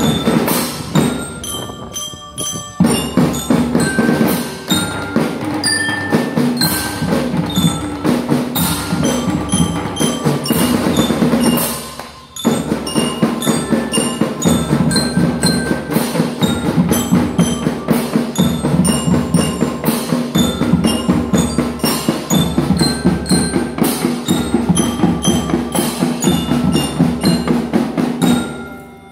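School marching drum band playing: drums beat a steady rhythm under a bright bell-lyra (glockenspiel) melody. The playing drops out briefly about twelve seconds in, then picks up again.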